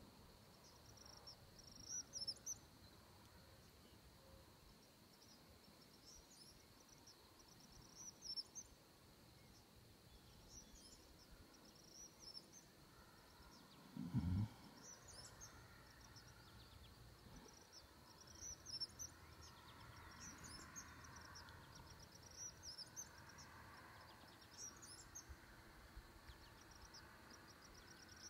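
Faint outdoor dawn ambience: a steady high insect drone with short, high chirps repeating every two to three seconds. A single low thump about halfway through.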